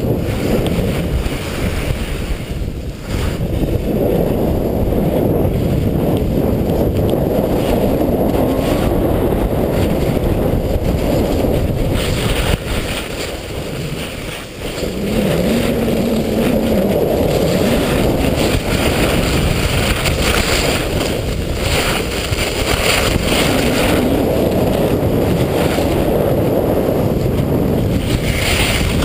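Wind rushing over the microphone of a camera moving downhill, with the hiss of sliding on packed snow; it eases for a moment about halfway through.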